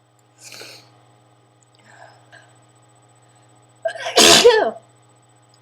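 A person's loud voiced sneeze about four seconds in, lasting under a second, part of an allergy sneezing fit; a short breathy sound comes about half a second in.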